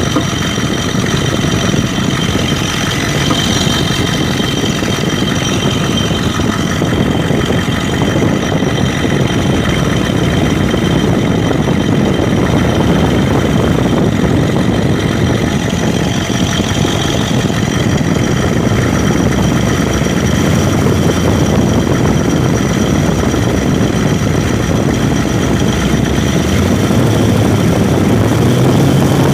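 1992 Ford 7.3 IDI V8 diesel idling steadily. The engine has broken second compression rings on two pistons and a bad valve guide, the cause of the random idle misfire, blowby and injector-like knock the owner reports.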